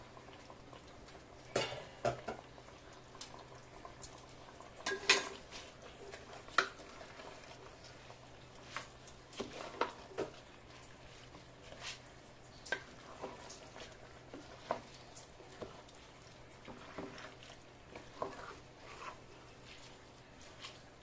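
A spatula stirring and folding washed basmati rice into chicken masala in a metal pot, with irregular knocks and scrapes against the pot's sides.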